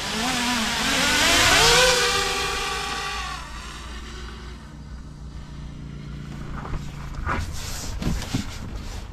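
A 10-inch FPV quadcopter's four Foxeer Black Hornet 3210 900KV brushless motors spool up with a rising whine as it is hand-launched and climbs away, then the sound fades over the next few seconds. A few soft knocks come near the end.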